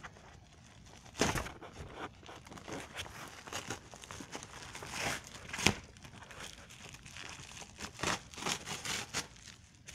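Mail package being torn open by hand: wrapping crinkling and tearing in irregular bursts, the sharpest a little past halfway.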